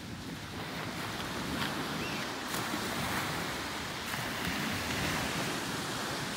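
Small Gulf of Mexico waves breaking and washing ashore: a steady rush of surf mixed with wind buffeting the microphone.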